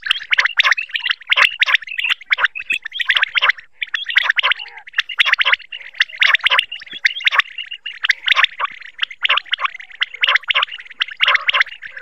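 Common quail calling: fast runs of short, high-pitched notes in clusters, repeated with only brief pauses.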